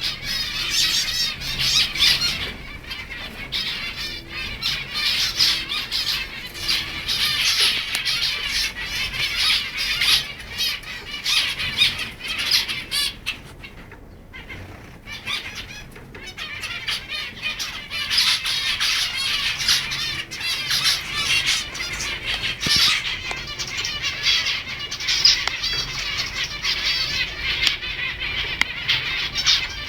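A flock of zebra finches calling together: a dense chatter of many short calls overlapping. It dies down for a few seconds midway, then picks up again.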